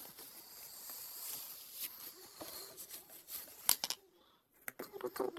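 Homemade tangle slime squeezed and stretched by hand: soft sticky crackling and small clicks, with one sharper pop about three and a half seconds in.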